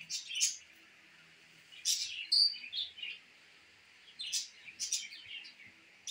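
Small birds chirping in short high-pitched bursts, a group of calls every second or so, with one brief clear whistle about two and a half seconds in.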